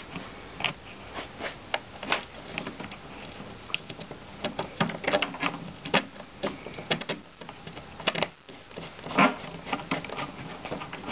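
Irregular small clicks, taps and rattles of bolts and washers being handled and fitted by hand through a bunk-bed panel, with a louder knock about nine seconds in.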